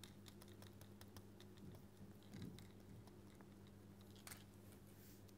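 Near silence: faint, irregular clicks and taps of a pen stylus writing on a tablet screen, over a low steady electrical hum.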